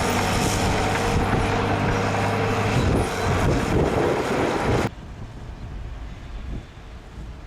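Heavy diesel earthmoving machinery running loudly under load. About five seconds in, the sound drops off abruptly to a fainter low rumble.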